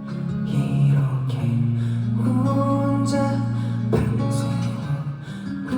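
Live band music led by an acoustic guitar over held low notes, with a single sharp hit about four seconds in.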